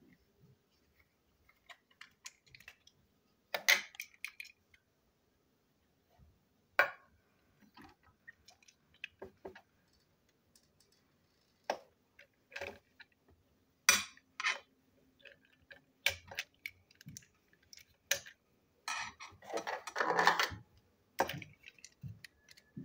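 Hard plastic parts of a toy train engine being handled and pried apart: scattered sharp clicks and knocks, with a denser rattling clatter about three-quarters of the way in.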